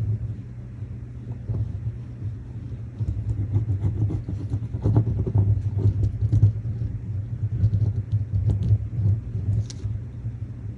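Paper and craft pieces being handled and pressed on a tabletop: irregular rustles and soft knocks, denser from about three seconds in, over a steady low hum.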